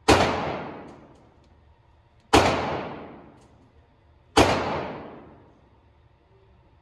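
Three shots from a Glock 30 .45 ACP pistol, about two seconds apart, each a sharp crack followed by a long echo dying away in the indoor range.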